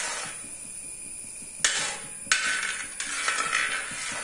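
A metal ladle stirring hot jaggery syrup in a wide metal uruli, scraping around the pan. It knocks sharply against the vessel three times in the middle.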